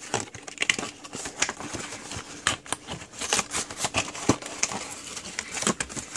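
Cardboard box being roughly torn and pried open by hand: irregular ripping, crackling and rustling of paperboard.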